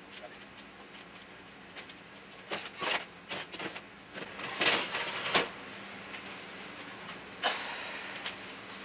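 Scattered knocks, clatter and rustles of hands working at a stripped wooden kitchen base cabinet, busiest about halfway through, with one more knock near the end, over a faint steady hum.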